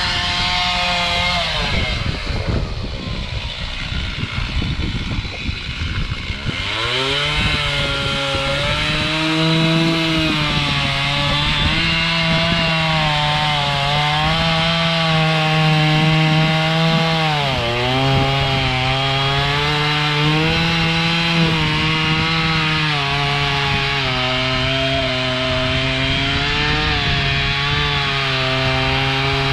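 Two-stroke chainsaw making the back cut to fell a dead pine tree. The engine eases off for a few seconds near the start, then revs back up to a high, steady cutting note that dips briefly under load partway through.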